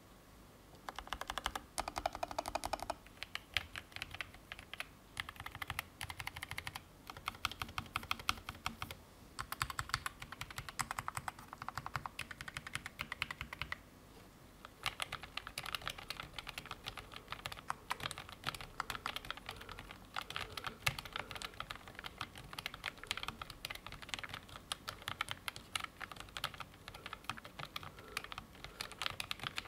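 Typing on a Keychron K17 Max low-profile mechanical keyboard with Gateron Low Profile 2.0 red linear switches and ABS keycaps: a fast run of key clicks with short breaks, one about fourteen seconds in.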